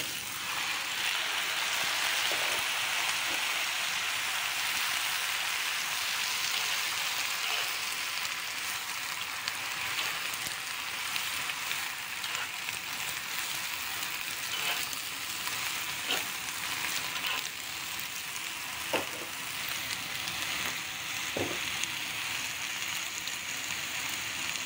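Wood ear fungus, dried lily flowers and bamboo shoots sizzling as they drop into hot oil in a wok, the sizzle swelling sharply as they go in, then frying steadily while a spatula stirs them. A few scrapes and knocks of the spatula against the pan come in the second half.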